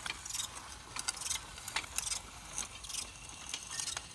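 Push garden seeder with two spoked steel wheels and a trailing drag chain, rolled over tilled soil while sowing wheat: its metal parts and chain clicking and rattling in irregular ticks, a few each second.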